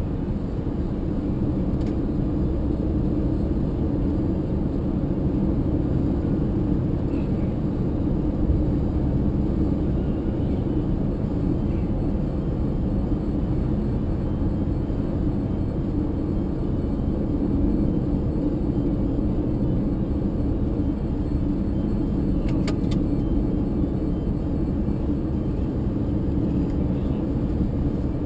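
A car driving along a highway: a steady low rumble of tyres and engine that holds even throughout, with a short run of faint clicks about three quarters of the way through.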